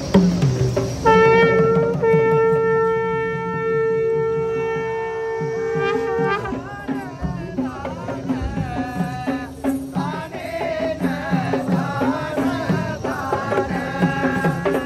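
Traditional Sri Lankan ceremonial music played live: a wind instrument holds one long note for about five seconds, then plays a wavering melody over drumming on Kandyan double-headed drums.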